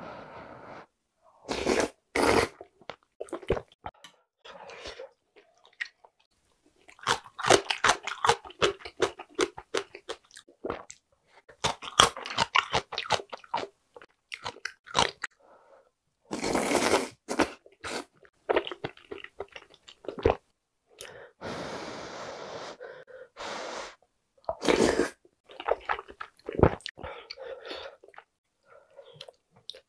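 Close-miked chewing and crunching of food, in dense runs of quick crunchy bites separated by short pauses.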